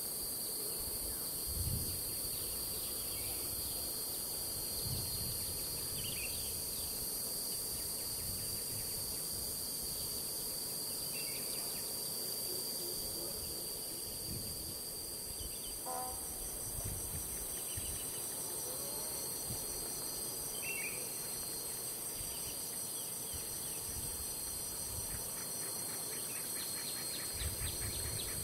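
Steady high-pitched chorus of insects in tropical forest, with a few short, faint bird chirps over it.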